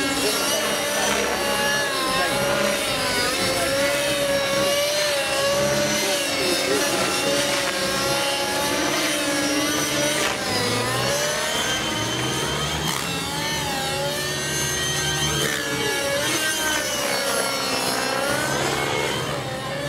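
Align T-Rex 600 nitro RC helicopter flying overhead: its two-stroke glow engine and rotor blades run continuously. Their pitch keeps rising and falling with throttle and blade-pitch changes during 3D aerobatics, with wide sweeps up and down in the second half.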